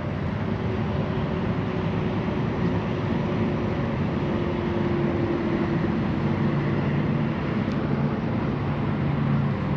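Steady low engine drone with a faint hum, a little stronger around the middle.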